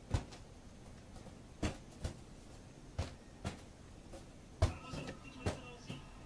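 A rubber balloon being batted back and forth between a child's hand and a cat's paws: a string of short, sharp taps spaced about half a second to a second and a half apart.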